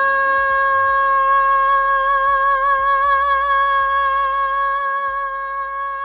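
Outro background music: one long held note with a slight wobble, beginning to fade out near the end.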